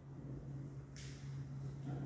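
A steady low hum, with a brief rustle or click about a second in.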